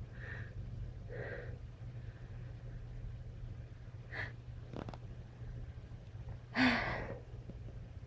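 A person sneezing once, hard, about two-thirds of the way in, after a few short sharp breaths in.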